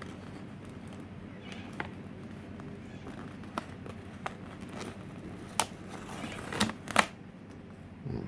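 A thin clear Lexan body shell handled by hand, with scattered sharp clicks and crackles as the plastic flexes and masking is peeled off, the loudest near the end. A steady low hum runs underneath.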